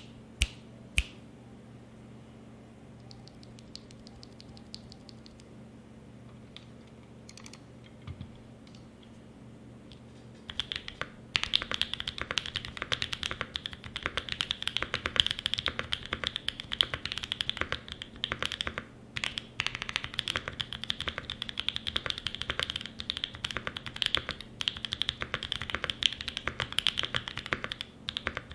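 Mode 80 mechanical keyboard with lubed Holy Boba tactile franken switches, FR4 plate and GMK keycaps: a few sharp key clicks at the start, a lull of about ten seconds with only scattered light taps, then fast, continuous typing.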